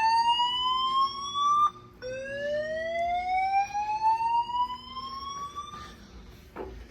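Building fire alarm sounding a slow rising whoop: a tone that climbs steadily in pitch over about four seconds, cuts off, then climbs again. The second sweep stops about six seconds in.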